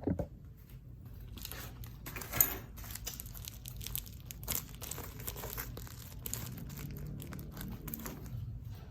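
Packaging being handled and torn open, crinkling and crackling irregularly, with one louder sharp click about two and a half seconds in.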